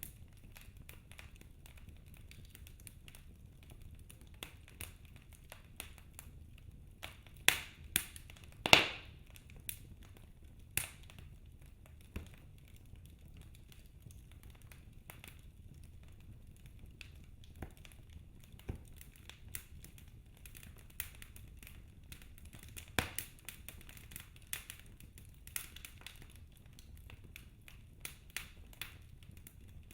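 Wood fire crackling in a fireplace: scattered small ticks and pops over a low rumble, with a few sharper pops, the loudest about nine seconds in.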